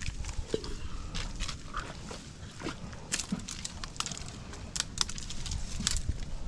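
Scattered sharp clicks and crackles over a low rumble as a thin trap stick is handled among mangrove branches and worked into soft mud.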